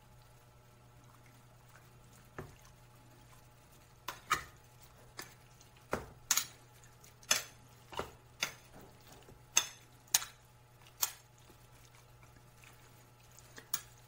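A metal spoon clinks and scrapes against a glass bowl as seasoned chicken breast is mixed. There are a dozen or so sharp clinks, mostly between about four and eleven seconds in, over a faint steady hum.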